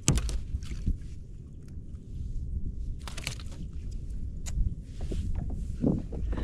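Scattered knocks and rustles of a landed snook being handled in a landing net against the kayak, over a steady low rumble. The sharpest knocks come right at the start, about three seconds in, and near the end.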